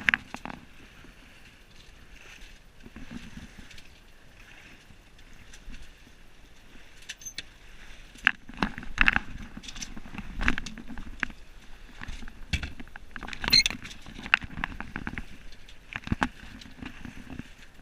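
Sounds aboard a small sailboat under way: a steady rush of water along the hull, with scattered sharp knocks and clatters that come thickest in the second half.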